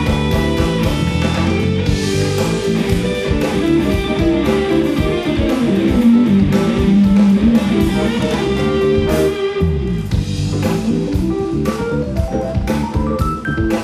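Live instrumental rock band: a Stratocaster-style electric guitar plays lead lines over drum kit, bass guitar and keyboards.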